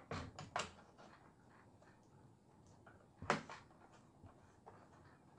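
Faint handling clicks, then one sharper knock a little past three seconds in, as phone-holder mounts are fitted and screwed into the back of a ring light.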